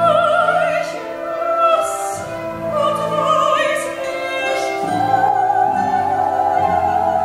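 Operatic soprano singing long held notes with wide vibrato over an instrumental accompaniment, her line stepping up to a higher sustained note about five seconds in.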